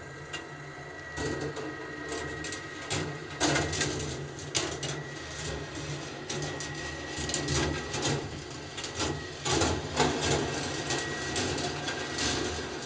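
Marbles rolling along a copper-wire rolling ball sculpture, with irregular clicks and clacks as they drop, switch and strike the track, over a steady hum from the machine's lift.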